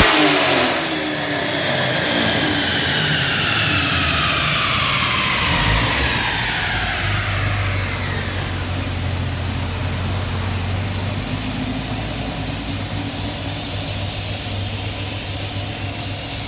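A 2017 Camaro SS's 6.2-litre LT1 V8 and the dyno rollers coasting down after a full-throttle pull on a chassis dyno: the throttle closes about a second in, and a whine falls in pitch over about eight seconds. It then settles into a steady low hum.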